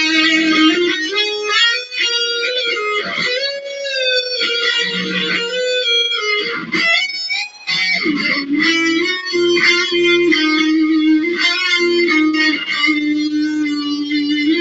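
Electric guitar shredding: fast lead lines of quick runs and bent notes, with a wavering held note about four seconds in.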